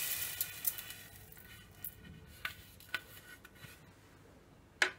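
Dry roasted split moong dal grains sliding off a plate into a steel mixer-grinder jar, a rattling hiss that dies away within the first second. Then a few light clicks and taps, with the sharpest one near the end.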